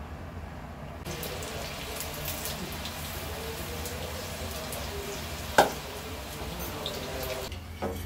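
Cabbage and onion pakoras deep-frying in hot oil in a kadai, sizzling and crackling from about a second in. One sharp knock a little past halfway, and the sizzle drops away near the end.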